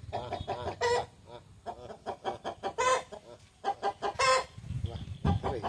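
Aseel chickens clucking in quick runs of short notes, with three louder, longer calls about one, three and four seconds in.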